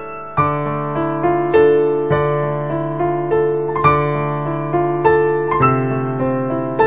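Background music: a piano playing a melody over chords, each note struck and then fading, in a steady rhythm.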